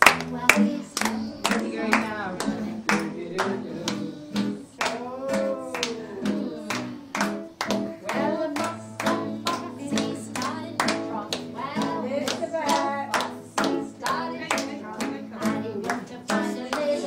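Hand-clapping in a steady beat, about two to three claps a second, over a strummed acoustic guitar and singing voices.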